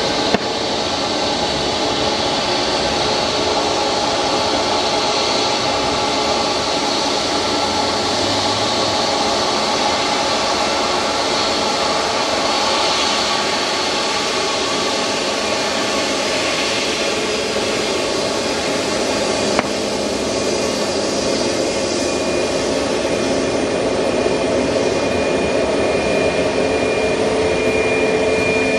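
Jet airliner engines running: a steady rush with a high whine that grows louder near the end. Two sharp clicks come through, one just after the start and one about two-thirds of the way in.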